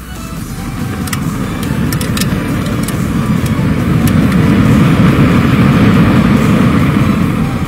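A match-head booster burning on a toy jet truck: a loud, steady rush of noise that builds over about five seconds and eases off near the end.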